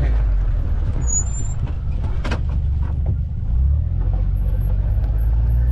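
Side-by-side UTV engine running with a steady low drone as it drives along a gravel road, heard from on board; a knock or rattle from the bumpy ride comes a little over two seconds in, and the engine note shifts about a second later.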